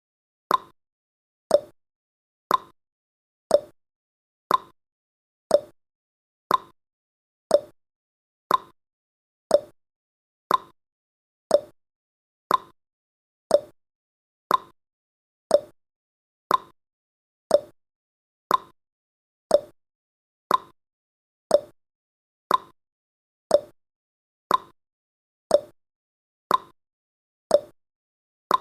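Countdown timer's tick-tock sound effect: one short, sharp tick per second, alternating between a higher and a lower tick.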